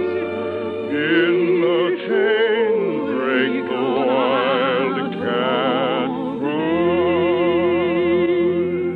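A lullaby sung solo in a classical, operatic style with wide vibrato and long held notes, over orchestral accompaniment.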